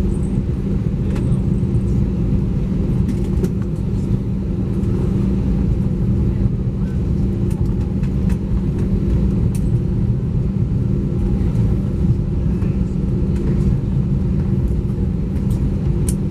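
Steady low rumble and hum inside the cabin of an Airbus A320 on the ground after landing, with a few faint clicks.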